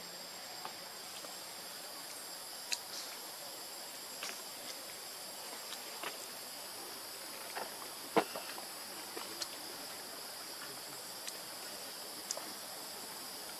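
Steady high-pitched drone of forest insects, with a dozen or so short scattered clicks and taps over it, the loudest about eight seconds in.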